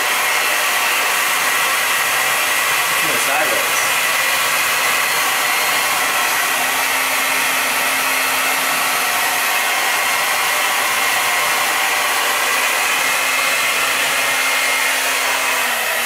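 Handheld hair dryer running steadily, blowing a strong stream of air with a steady whine over the rushing air; a low hum joins in about six seconds in.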